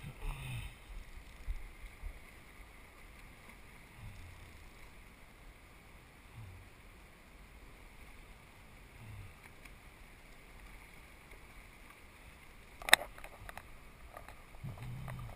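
River water running with a steady hiss, with a single sharp knock near the end.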